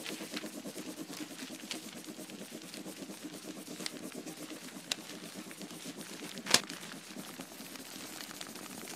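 A low, steady hum under faint crackling, with scattered small ticks and one sharp, louder click about six and a half seconds in.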